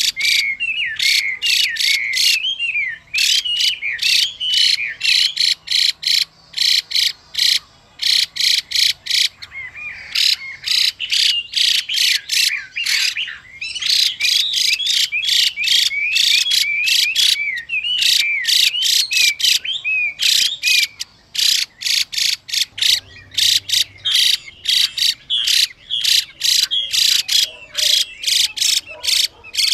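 Chinese hwamei giving long runs of fast, harsh rattling calls, several notes a second, with short whistled notes mixed in, in bursts broken by brief pauses. The rasping series fits the hen hwamei's 'xùy' call that keepers play to excite male birds into song.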